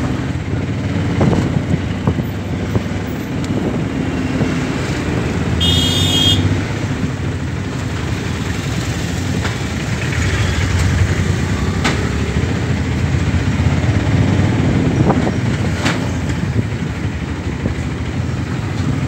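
Auto-rickshaw engine running steadily as it rides through street traffic with motorcycles and scooters around it. A high-pitched vehicle horn sounds once, for about half a second, about six seconds in.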